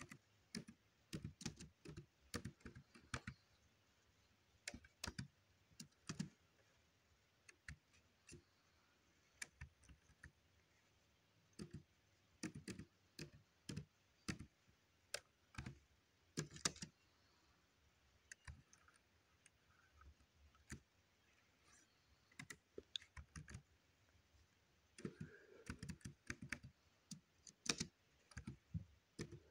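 Laptop keyboard being typed on: short, irregular runs of keystroke clicks with pauses between words.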